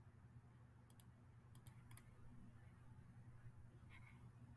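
Near silence with a few faint computer mouse clicks, in quick pairs, between about one and two seconds in.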